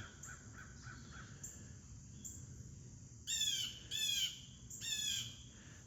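Blue jay giving three loud harsh calls, each falling in pitch, about a second apart in the second half, with faint small bird chirps before them.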